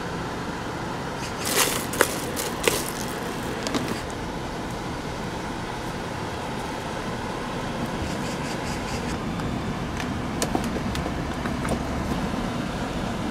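Steady street and traffic noise, with a few sharp clicks and rustles from the first seconds on as toppings are spooned and scooped onto a bowl of shaved ice, and lighter clicks later.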